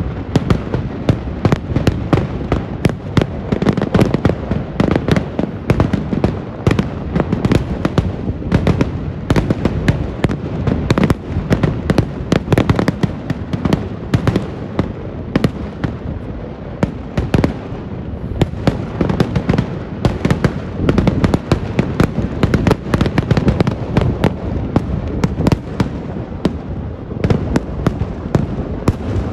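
Kerala vedikettu fireworks barrage: rapid, overlapping firecracker bangs, many a second, running without a break over a low rumble.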